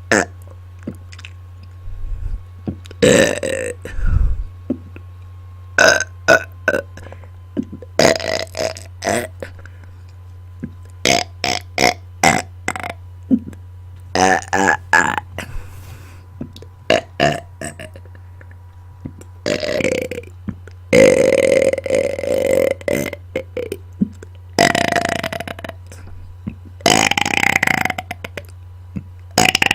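A person burping repeatedly into a close microphone: a string of short belches and several long, drawn-out ones, with a steady low hum underneath.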